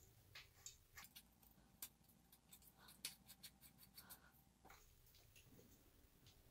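Faint, scattered small clicks and scrapes of a metal bicycle bottom-bracket ring nut being threaded on by hand over the pedal assist sensor bracket, thinning out near the end.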